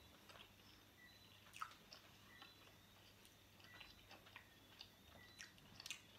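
Faint chewing and biting of pepperoni pizza, with scattered soft clicks and small crunches of the crust.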